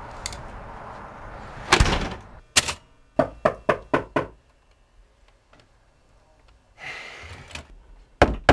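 A heavy thump, then a manual typewriter's keys struck in a quick run of about five clacks. After a short pause comes a loud knock on a wooden room door near the end.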